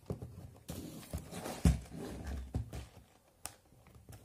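Cardboard Lego set box being handled and set on a table: a series of irregular knocks and thumps, the loudest about a second and a half in.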